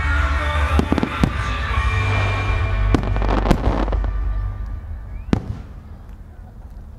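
Fireworks shells launching and bursting in a series of sharp bangs, about five of them, the last one about five seconds in. Background music plays under the first bangs and fades out after about four seconds.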